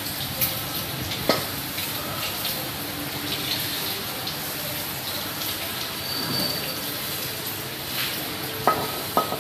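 Tap water running steadily into a sink as a fish is rinsed under it. Near the end come two sharp metallic knocks with a short ring as a wok is handled at the sink.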